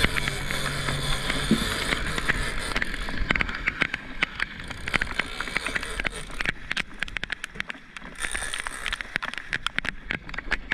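Water rushing and splashing along the hull of a boat under way, with a low hum at first. From about two and a half seconds in come many quick, irregular sharp clicks and ticks.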